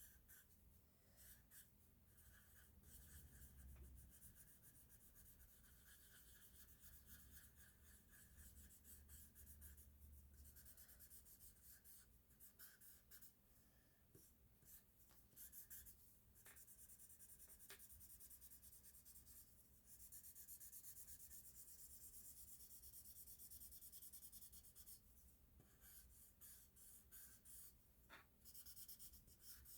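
Faint scratching and rubbing of a drawing tool on paper, in short irregular strokes that come and go.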